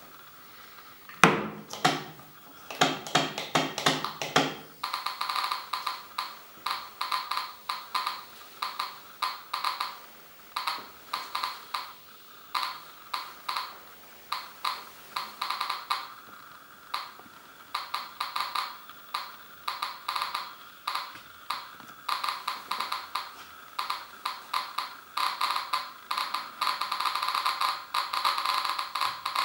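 SV-500 Geiger counter with an SBT-10 pancake tube clicking on its loudspeaker, each count a sharp tick, arriving irregularly in quick clusters. About a second in, the counter's rotary selector switch is turned, with a few louder knocks, and the counts grow denser toward the end.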